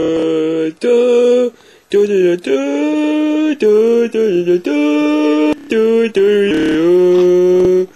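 A boy's voice singing a wordless tune a cappella, in held notes of about half a second to a second and a half, with short breaks and pitch glides between them.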